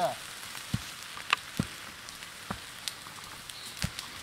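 Grass fire set by a burning ampulomet incendiary charge, crackling: irregular sharp pops and snaps, a few a second, over a steady hiss.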